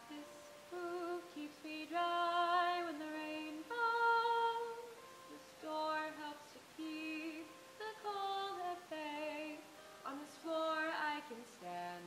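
A young woman singing a slow musical-theatre ballad solo, in phrases with vibrato on the held notes, over a soft instrumental backing.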